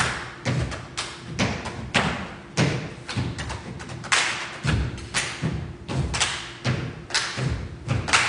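A steady percussive beat on stage: low thumps with sharp slaps or claps on top, about two a second, over a faint steady hum.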